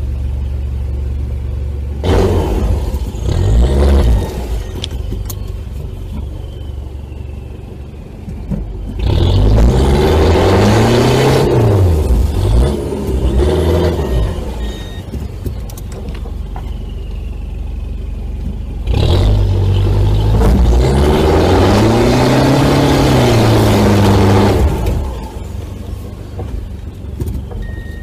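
Mitsubishi L200 pickup's engine heard from inside the cab. It runs steadily, then revs up and eases off in three surges, its pitch rising and falling, with steadier running between.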